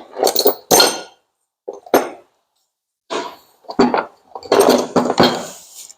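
Metal hand tools and sockets clinking and clattering in a series of irregular knocks, busiest near the end.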